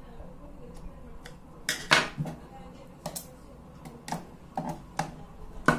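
Screwdriver working at the screws of a plastic doorbell case: sharp clicks and knocks of tool, screws and case, a handful of them about a second apart, the loudest about two seconds in.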